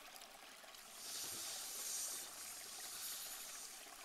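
Faint pond-side water ambience: a soft, even trickling hiss that swells slightly about a second in, then eases off.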